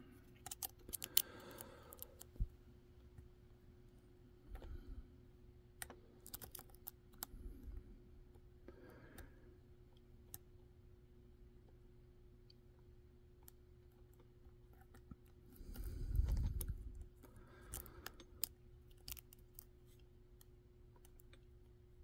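Light, irregular clicks and scrapes of a lock pick and tension bar working the pins inside a DOM Sigma Plus euro cylinder held in a vise, as it is picked from a false set. A louder dull rustle comes about two-thirds of the way through, over a faint steady hum.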